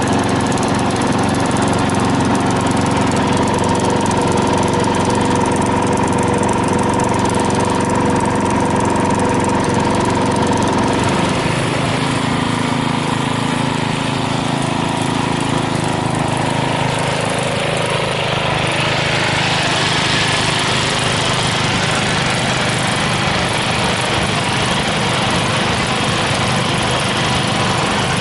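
Riding lawn mower's small engine running steadily under way, its pitch shifting about a third of the way in. A hissing rush grows over the second half.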